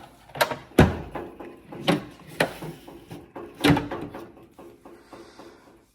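Hand tools and a metal toolbox drawer being handled: about five sharp clanks and knocks over the first four seconds, some with a brief metallic ring, then quieter rattling.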